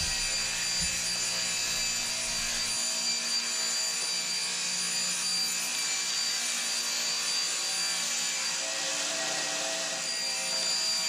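Table saw running steadily as it rip-cuts a sheet of 3/4-inch birch plywood, a constant whirring hiss with a faint high whine.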